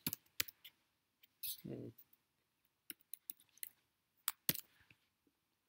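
Computer keyboard keys clicking in irregular keystrokes as a filename is typed, with a brief murmur of a man's voice about a second and a half in.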